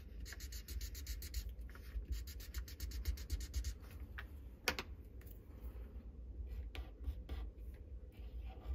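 Felt-tip highlighter rubbing on paper in quick back-and-forth strokes, then a single sharp click near the middle, followed by fainter, sparser pencil strokes on paper.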